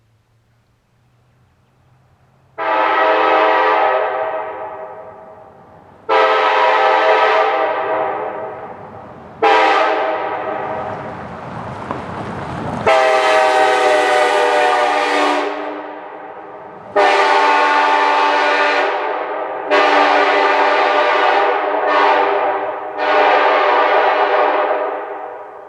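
Multi-chime railroad air horn sounded in a series of about eight blasts, each a steady chord that fades and loses its brightness as it goes. A hiss of air rises just before the longest blast in the middle.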